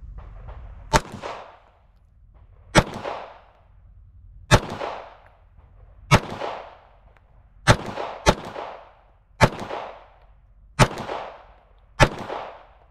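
Nine 9mm pistol shots from a Shadow Systems CR920P micro carry pistol, fired slowly, about one every one and a half seconds, with two close together about eight seconds in. Each sharp crack trails off in a short echo.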